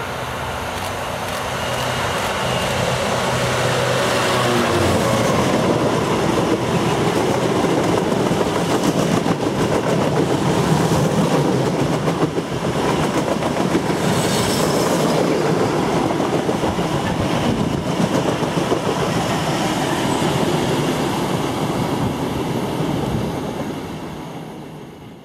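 Freightliner Class 66 diesel locomotive passing at speed, its engine tone dropping in pitch about four seconds in as it goes by. A long rake of cement tank wagons follows, rumbling and clattering over the rail joints, then fades away near the end.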